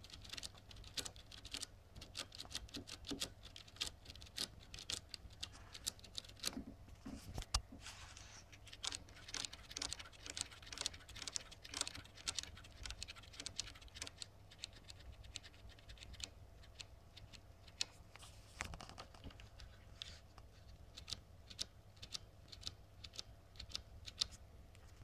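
Typing on a mechanical keyboard with the keycaps removed, so the bare MX Brown-type switches click directly: irregular runs of quick keystrokes with short pauses between them.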